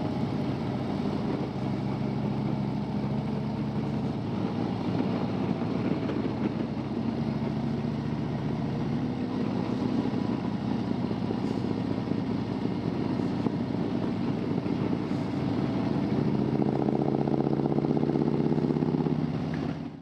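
Harley-Davidson V-twin motorcycle engine running steadily at road speed as it is ridden, its note climbing in the last few seconds as the bike speeds up.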